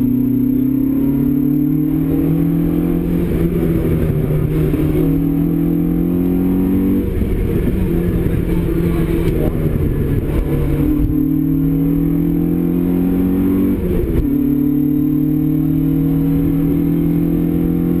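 Opel Kadett GT/E rally car's four-cylinder engine heard from inside the cabin under hard driving, revs climbing steadily and then dropping sharply at each gear change, about three times.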